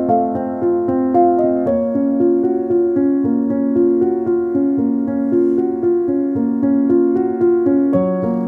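Background keyboard music: a gentle, even run of piano-like notes, with the chord changing about two seconds in and again near the end.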